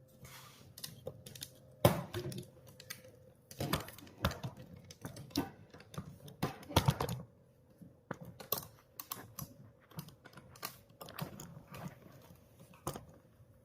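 Irregular clicks, taps and short rubbing strokes from hands cleaning the plastic casing of a Singer Quantum Stylist 9960 sewing machine.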